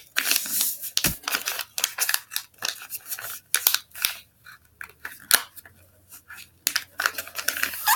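Sheet of printer paper being folded and creased by hand: a run of short crisp rustles, swishes and sharp crackles as the corners are folded and fingers run along the creases.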